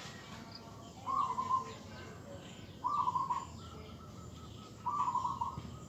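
A bird calling three times, about two seconds apart, each call a short quick run of notes.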